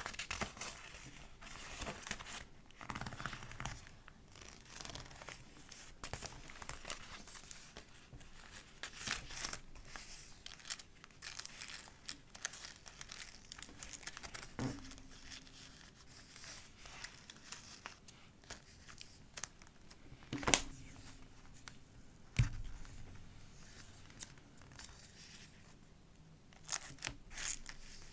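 Pages of a thick collage art journal being turned and handled, with crisp paper rustling and crinkling of the layered, stuck-on paper. A few sharper taps stand out along the way.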